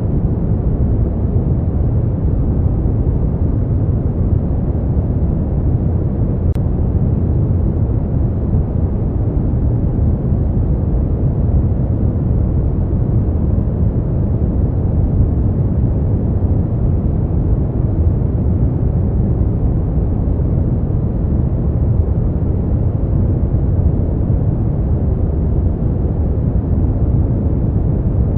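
Steady synthetic sleep noise of the kind sold as white noise, a deep, dark hiss that sits mostly in the low end with no bright hiss on top, unchanging throughout.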